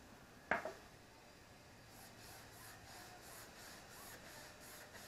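Faint rag wiping back and forth on a tire's rubber sidewall, cleaning off grinding residue: a soft rhythmic swishing of about three strokes a second from about two seconds in. One sharp knock comes about half a second in.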